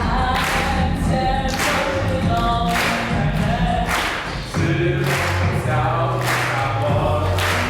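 A group of voices singing together over an accompaniment, with a steady beat struck roughly once a second.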